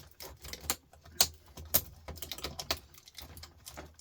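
Irregular light clicks and taps of hand tools against the metal and plastic parts of a computer power supply board as it is pried apart.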